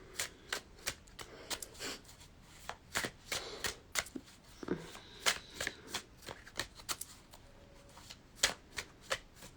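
Tarot cards being shuffled and handled by hand: an irregular run of short soft snaps and slaps as the cards are cut and riffled.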